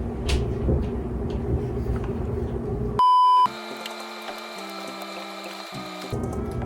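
A half-second 1 kHz censor bleep about three seconds in, the loudest sound here, over background music; a dense noisy layer stops sharply at the bleep and comes back about six seconds in.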